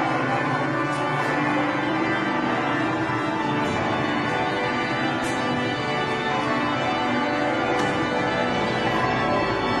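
Organ music playing steadily.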